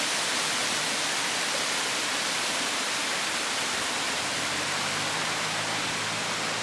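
Cathedral Falls, a 61-foot waterfall, rushing as a steady hiss of falling water. It starts suddenly and holds an even level.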